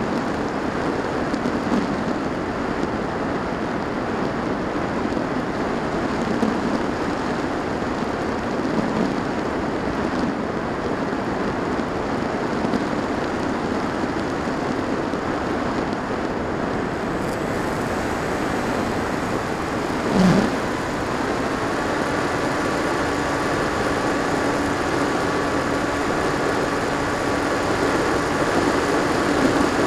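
Steady rush of airflow over the onboard camera's microphone on a Firstar 2000 V2 FPV glider in flight. About two-thirds through there is a brief louder swoosh, and then a steady electric-motor whine joins in and holds.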